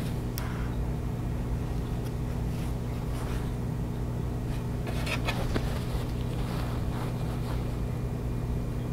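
A steady low electrical hum, with a few soft rustles of quilt fabric being handled about five seconds in.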